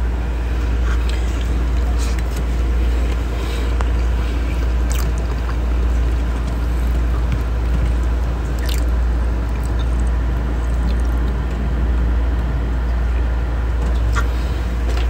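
A steady low hum throughout, with a few small clicks and soft squishes as rice and fermented crab are pressed together and eaten by hand.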